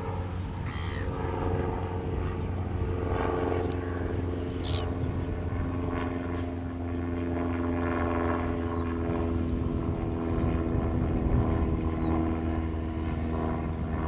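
A steady low motor drone with several held tones that drift slightly in pitch. Over it there is a short, sharp high call about a third of the way in, then two thin whistled calls that dip at the end, one past the middle and one later.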